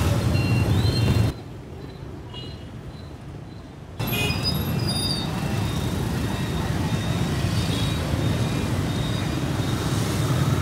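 Busy street traffic, mostly motorbikes, with a steady rumble of engines and tyres. The sound drops abruptly to a much quieter stretch about a second in and comes back just as suddenly about four seconds in.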